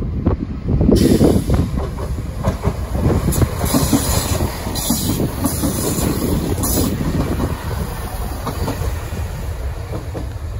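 Great Western Railway Networker Turbo diesel multiple unit moving past along the platform, its underfloor diesel engines running and its wheels clattering over rail joints, with brief high hisses or squeals from the wheels between about three and seven seconds in.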